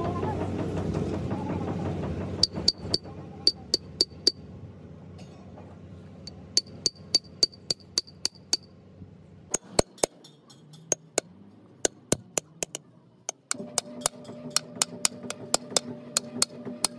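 Hammer tapping on a steel brake-drum casting mold and its bolts: sharp ringing metal clinks in quick runs of several strikes, with pauses between.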